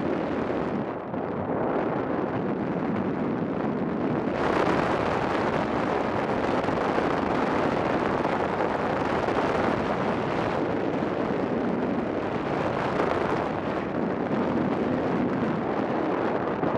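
Wind noise from the airflow over the camera microphone of a paraglider in flight: a steady rush, duller for the first few seconds and fuller and brighter from about four seconds in.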